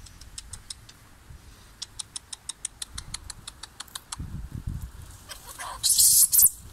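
An animal's short, high chirps repeat evenly at about four or five a second, then stop. Near the end comes a loud, brief rustling.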